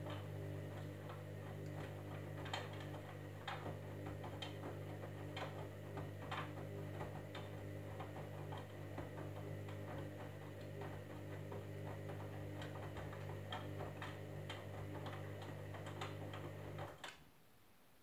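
Candy Grand'O Vita washing machine's drum motor running with a steady hum as it turns the wet load during the wash, with scattered light clicks from the tumbling drum. The motor stops suddenly about a second before the end as the drum pauses between turns.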